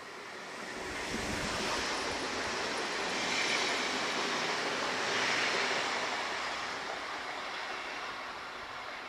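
Red DB electric multiple-unit passenger train passing close by on the rails. Its rolling noise swells with a low rumble about a second in, is loudest in the middle, then slowly fades as the train moves away.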